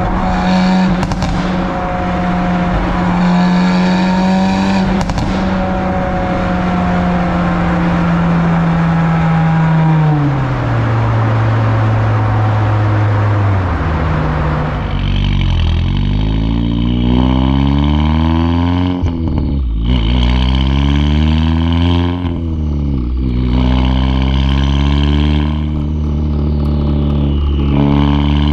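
Exhaust of an Audi S3 8Y's turbocharged 2.0-litre four-cylinder, with a DBV2 4-inch downpipe and the stock muffler, driving through a tunnel. It cruises at a steady note, which drops lower about ten seconds in. From about fifteen seconds in the car accelerates: the note climbs and dips sharply three times at gear changes.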